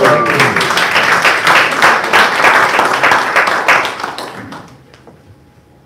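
Congregation applauding, many hands clapping together, dying away about four to five seconds in.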